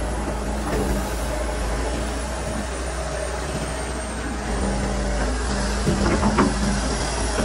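Kobelko SK200 excavator's diesel engine running steadily under hydraulic load as the boom and arm move, heard from the operator's cab. A short cluster of knocks about six seconds in.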